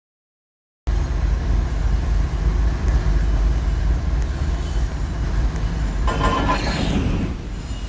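Train running past with a heavy, steady low rumble, cutting in abruptly about a second in; a brief brighter, higher-pitched sound rises over it about six seconds in.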